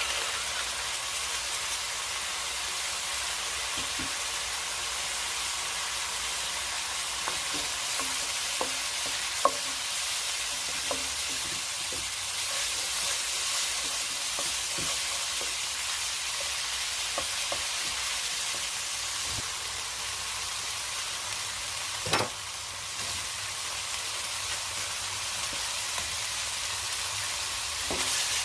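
Food sizzling steadily in a hot frying pan while being stirred, with scattered light utensil clicks against the pan and two sharper knocks, about ten seconds in and again about twenty-two seconds in.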